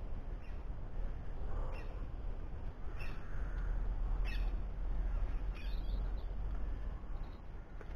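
A crow cawing about five times, roughly one caw every second and a quarter, each call falling in pitch, over a steady low rumble.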